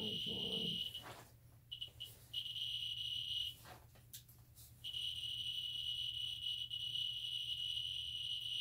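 Geiger counter's speaker chirping so fast that the counts run together into a high, shrill tone. It cuts out around the first and third seconds and then holds steady from about halfway on. The high count rate comes from the radioactive uranium ore it is held over.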